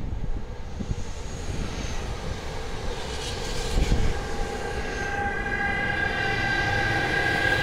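Trenitalia E405 electric locomotive passing very slowly at the head of a container freight train, over a low rumble. A steady, multi-tone electric whine from its traction equipment comes in about five seconds in, as the locomotive draws alongside. Around the middle a passenger train on the other track passes in a louder rush.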